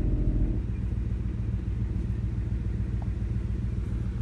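Ford air suspension compressor running under a scan tool's active test, a steady low hum pumping air into the suspension; its higher tones drop away about half a second in.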